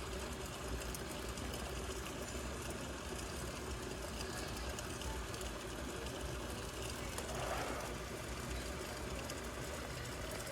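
Glass electric kettle heating water: a steady low rumble with hiss as the water works toward the boil.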